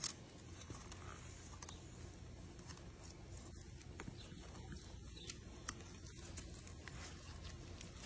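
Plastic fork stirring a thick, gritty mix in a plastic tub: faint, irregular scrapes and clicks as it works through the mixture.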